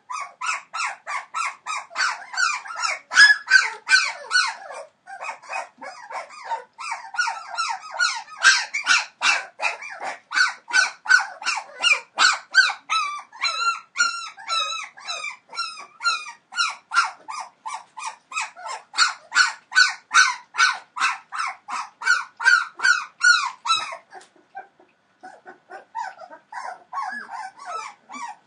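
Three-week-old Entlebucher Mountain Dog puppies yelping and whining in high, squeaky cries, about three or four a second. There is a brief lull near the end, then fainter cries.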